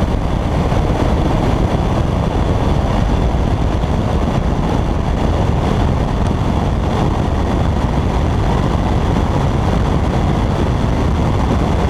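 Car driving at highway speed: a steady, loud rush of wind and road noise with engine drone, heaviest in the low end and unchanging throughout.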